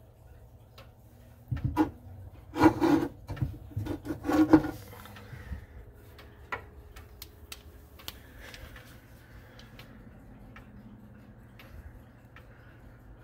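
Hand rubbing and knocking against the wooden case inside a grandfather clock, in a burst from about one and a half to five seconds in. The clock's movement ticks steadily throughout.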